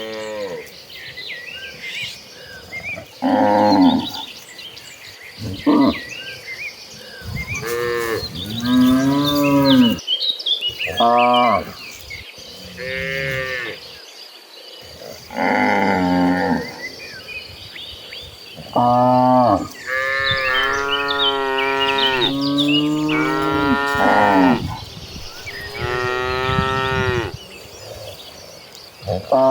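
Cattle mooing one after another, about a dozen calls at different pitches from several animals. The calls in the second half are longer and drawn out.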